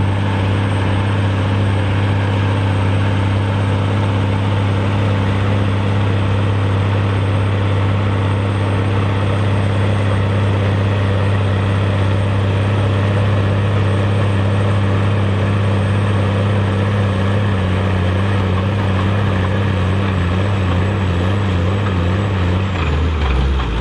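Case IH Steiger 535 tractor's Cummins QSX15 six-cylinder diesel running hard and steady under full load, pulling a heavy weight-transfer sledge. Its engine note holds nearly constant, then drops near the end.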